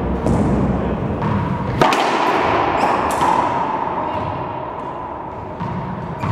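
Racquetball rally: a hollow rubber ball is struck by racquets and hits the court walls and floor, making several sharp echoing pops. The loudest comes about two seconds in. A steady hum runs underneath.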